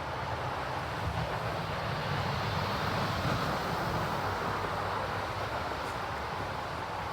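A vehicle passing on a snow-covered road, its tyre and engine noise swelling to a peak about three seconds in and then easing off.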